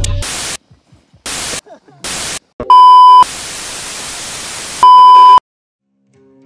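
TV-style static and test-tone sound effect: three short bursts of white-noise hiss, then a loud, steady high beep, softer hiss for about a second and a half, and a second identical beep, cut off into silence.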